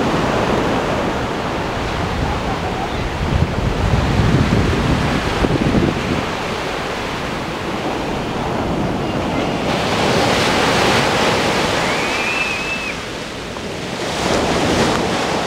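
Pacific surf breaking and washing up a sand beach, with wind buffeting the microphone. A wave's wash swells louder about ten seconds in, and a brief high chirp sounds a couple of seconds later.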